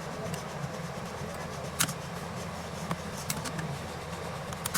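A steady low mechanical hum, broken by a few sharp clicks, three of them clearly.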